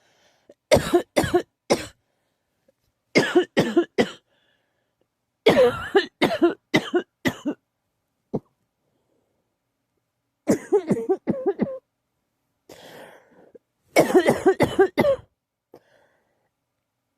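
A person in a coughing fit: five bouts of three to six quick, harsh coughs each, separated by pauses of a second or two.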